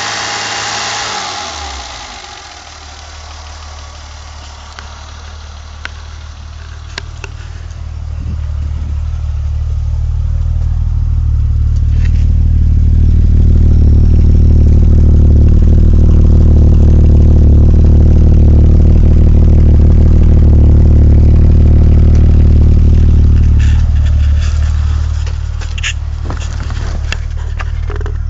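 BMW E28 520i's straight-six engine running. Its low, steady note swells over several seconds to a loud drone without much change in pitch, holds, then eases off about two-thirds of the way through. A few sharp clicks come near the end.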